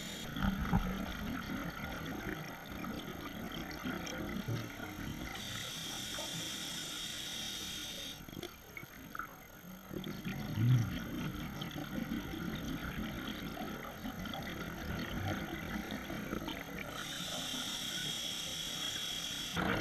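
Scuba regulator breathing underwater: stretches of hissing inhalation alternate with low bubbling bursts of exhaled air, a few slow breaths.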